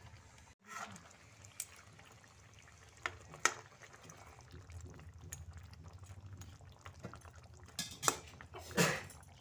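Curry simmering in a pan on a gas stove, over a steady low rumble, with a few sharp clinks of cookware; the loudest clink comes near the end.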